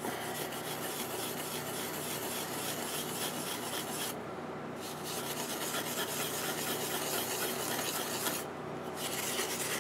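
Steel wool scrubbing the copper face of a freshly drilled homemade circuit board to clean it. The scrubbing is steady and stops briefly twice, about four seconds in and again about eight and a half seconds in.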